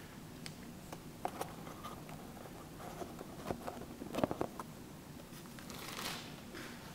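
Scattered light clicks and taps over faint steady room noise, with a cluster of sharper clicks about four seconds in and a short hiss near six seconds.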